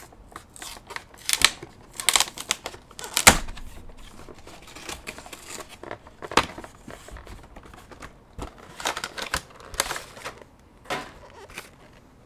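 Pokémon Pikachu V-Box being opened by hand: cardboard and plastic wrap tearing and crinkling in an irregular run of sharp clicks and snaps. The loudest snap comes about three seconds in.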